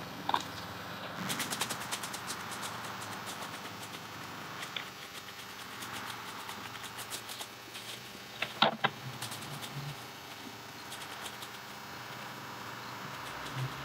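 Leafy twigs and branches being raked and gathered on a lawn: scratchy rustling and crackling, with a few sharp knocks about nine seconds in.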